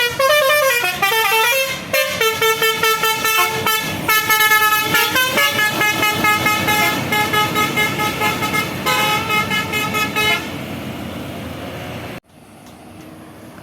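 Tour bus telolet horn, a multi-tone musical horn, playing a quick melody of stepping notes over the bus's running engine. The horn stops about ten seconds in, leaving the engine, and the sound drops off abruptly near the end.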